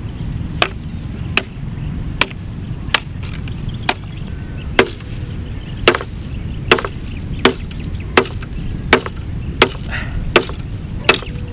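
Small, short bolo knife (itak) chopping dry driftwood into firewood: about fourteen sharp strokes at a steady pace, a little more than one a second.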